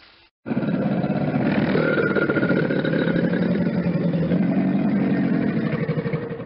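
Crocodile growling: a long, low, rapidly pulsing rumble that starts abruptly about half a second in and fades near the end.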